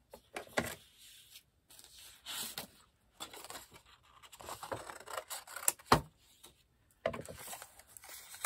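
Paper being handled and laid onto the magnetic sheet and cutting plate of a die-cutting sandwich: scattered rustling, scraping and light clicks, with one sharp knock about six seconds in.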